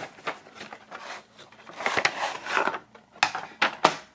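Hard plastic mask and cardboard box being handled: a scraping slide of plastic against cardboard about two seconds in, then three sharp knocks as they are set down on a wooden table.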